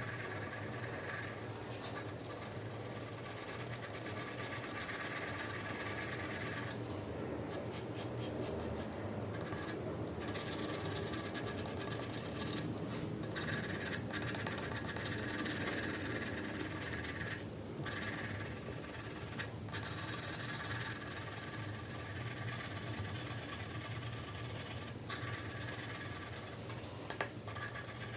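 4B graphite pencil shading on paper: a continuous scratchy rubbing made of many quick strokes, broken by brief pauses every few seconds as the pencil lifts.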